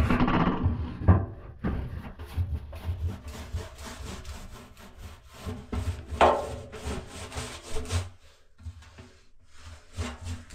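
Irregular scraping and rubbing strokes of a hand working at the bottom of a rusty steel drum, with a louder scrape about six seconds in.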